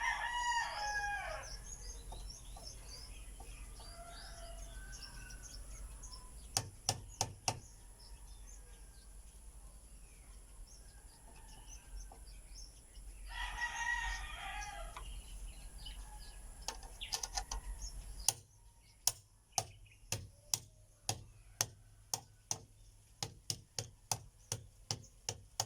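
A rooster crowing twice, once at the start and again about halfway. Between the crows come a few sharp clicks, and in the last third a steady run of sharp clicks, about two a second.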